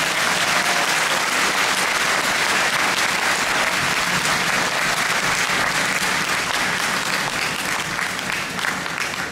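Audience applauding steadily, thinning a little near the end as single claps start to stand out.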